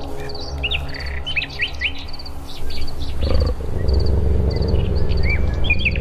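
Small birds chirping, with short repeated chirps and quick rising whistles, over a low droning music bed. About three seconds in, a louder low rumbling sound swells up underneath and carries on.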